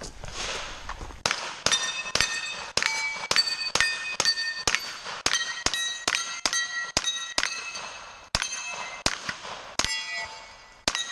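A rapid string of gunshots, about three a second, with many followed by the ringing clang of steel targets being hit. The string starts about a second in and runs with a few short pauses.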